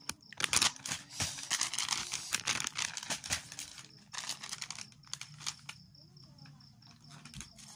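Plastic snack-chip bag crinkling as it is handled, dense for the first few seconds and then in sparser crackles.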